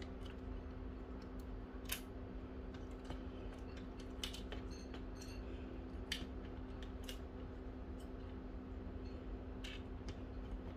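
Scattered small clicks and knocks of plastic parts on a laser printer fuser unit as its pressure roller and clips are worked loose by hand, over a steady low hum.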